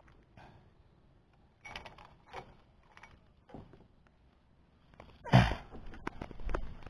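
Scattered short knocks and rustles of close handling noise, with one louder thump a little over five seconds in and a few light clicks after it.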